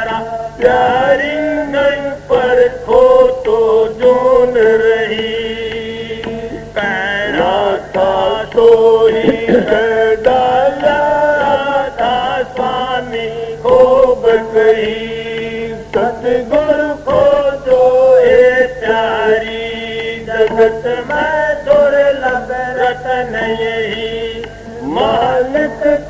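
A man singing a devotional shabad in a drawn-out, chant-like melody with gliding held notes, over the steady drone of a plucked long-necked gourd string instrument.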